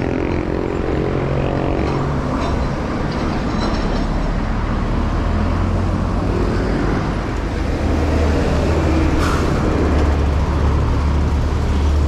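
Steady wind and road noise from a mountain bike riding along a paved road, heaviest as a low rumble, with traffic noise behind it. The rumble grows a little louder over the last few seconds, and there is a brief click about nine seconds in.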